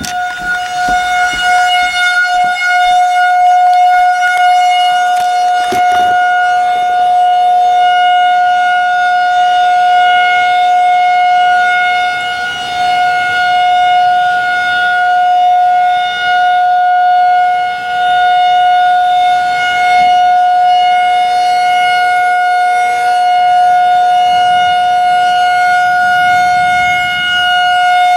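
Federal Signal 2001-SRN outdoor warning siren sounding a steady alert tone for a severe thunderstorm warning. It holds one loud, unwavering pitch, swelling over the first few seconds, then rising and falling a little in loudness.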